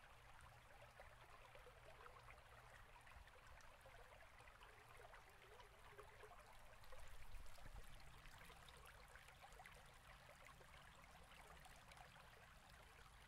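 Near silence: faint steady hiss of room tone, with a slight low rise about seven seconds in.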